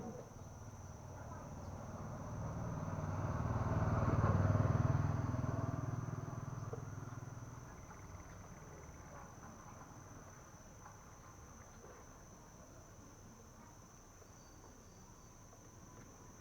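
Steady high-pitched insect trill, like crickets, throughout. A passing vehicle rumbles up, is loudest about four to five seconds in, and fades away by about eight seconds.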